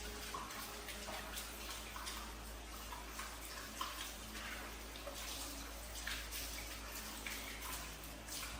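Water splashing and gurgling in a washing machine tub: irregular splashes over a steady rush of water.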